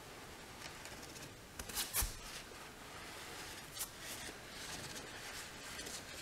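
A long paper banner sliding and rustling as it is pulled along by hand, with a few short sharp noises about two seconds in and another near four seconds.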